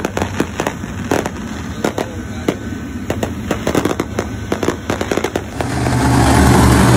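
A rapid, irregular run of sharp pops and crackles over a low hum. About five and a half seconds in, it cuts to dirt late model race cars running at speed on the track, a loud steady engine roar.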